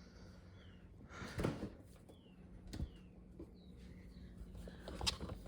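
Kitchen handling noises: a rustling clatter about a second and a half in and sharp knocks near 3 and 5 seconds, as food containers and utensils are picked up and set down. Short high falling bird chirps sound every second or two behind them, over a steady low hum.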